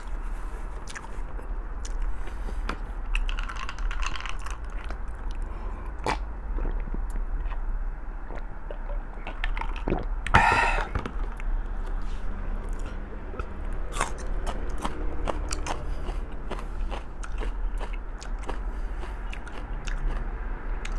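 Close-miked eating sounds of a person chewing stewed pig's feet: steady chewing with many small wet clicks and smacks, and one short louder burst about halfway through.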